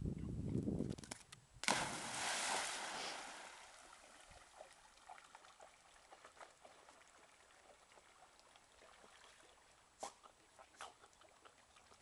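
A dog plunging into a lake: a sudden splash about two seconds in, with spray and sloshing water that die away over the next two seconds, then faint lapping and small splashes as it swims.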